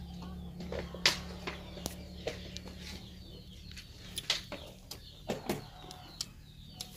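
Birds chirping in the background, with scattered small clicks and taps close by, the loudest about a second in and a few more between four and five and a half seconds in. A low hum fades out about three seconds in.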